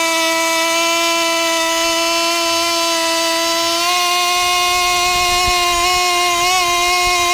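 ЦСТКАМ 2.5 КР two-stroke glow-plug model aircraft engine with a single-blade propeller and tuned pipe, running flat out on a test stand at about 21,000 rpm: a loud, steady high whine whose pitch steps up slightly about four seconds in. To the owner it seems not to come onto the tuned pipe's resonance, holding only 20–21 thousand rpm.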